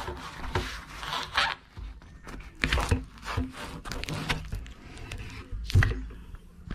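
Handling noise of a fishing rod in its cloth sleeve and a torn cardboard shipping tube: scraping and rustling with several sharp knocks, the loudest about six seconds in.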